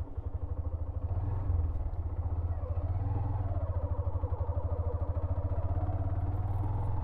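Hero Xtreme 125R's single-cylinder engine running as the motorcycle is ridden: a steady low pulsing that grows a little louder about a second in.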